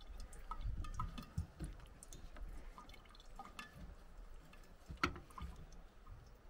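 Pour-over coffee dripping through a paper filter into a mug: scattered small drips, with a sharper tap about five seconds in.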